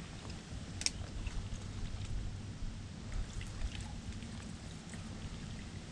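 Water sloshing and dripping close to the microphone over a steady low rumble, with a sharp click about a second in and scattered faint ticks.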